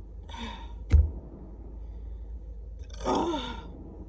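A woman breathing out, then a sharp knock about a second in, then a louder voiced sigh with a falling pitch about three seconds in.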